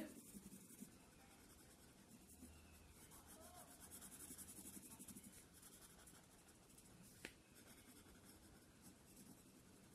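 Faint scratching of a felt-tip sketch pen rubbed back and forth on paper, colouring in a shape, a little stronger in the middle. A single faint click about seven seconds in.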